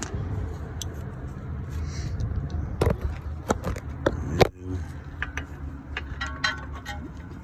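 Metal hand tools clinking and scraping as a 10 mm socket is picked out and handled, with a few sharp clinks around the middle, over a steady low hum.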